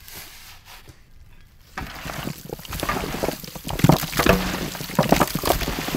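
Hands kneading raw chicken wing pieces in a wet red chili-and-spice marinade: a dense run of moist squelches and clicks that starts about two seconds in and grows louder.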